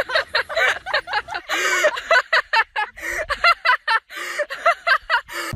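A person laughing hard: a rapid run of short 'ha' bursts, about four a second, broken by a brief pause past the middle.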